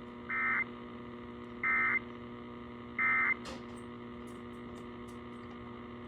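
Emergency Alert System End of Message signal: three short, identical bursts of buzzy digital data tones, each about a third of a second long, sent about a second apart to close the required monthly test. They come over AM radio reception, with a steady mains hum underneath throughout.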